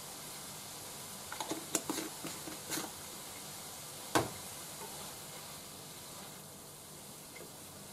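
Cabbage stir-fry sizzling faintly in a frying pan, with a quick run of light clicks and taps a second or so in and one sharp knock about four seconds in, as the seasoning is added and handled at the pan.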